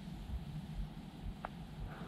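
Outdoor mountain air: a low, uneven wind rumble on the microphone, with one brief faint tick about one and a half seconds in.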